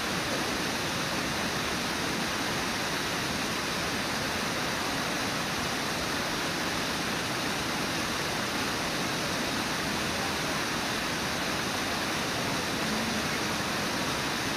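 Whitewater rapids and a low waterfall on a river: a steady, unbroken rush of water.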